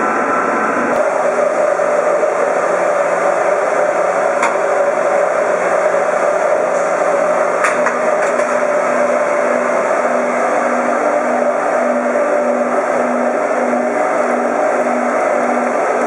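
Steady loud machine noise, a constant drone with a hum, joined in the second half by a low tone that pulses on and off about twice a second.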